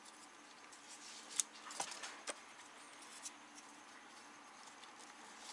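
Faint handling noises: a few light clicks and rustles of plastic engine-bay parts and wiring being moved by hand, spread through the first half.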